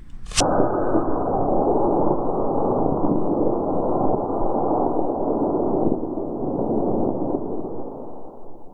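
Model rocket on a D20 motor lifting off: a sharp crack at ignition about a third of a second in, then a steady rushing noise that slowly fades over the last few seconds.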